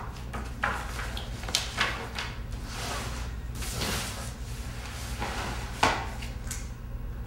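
Sheets of paper rustling as pages are handled and turned, with a few light knocks of hands and a book on a wooden tabletop, the sharpest one near the end.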